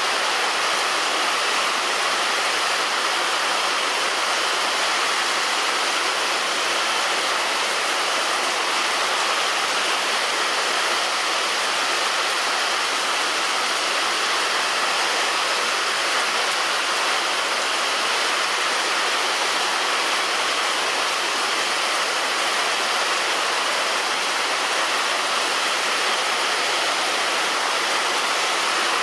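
Heavy rain falling steadily on a roof, an even wash of patter with no thunder.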